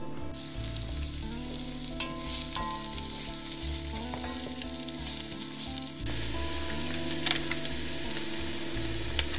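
Diced onion sizzling as it fries in hot oil, stirred with a wooden spatula, with a steady frying sizzle carrying on after a cut about six seconds in and a couple of light clicks near the end. Soft background music plays underneath.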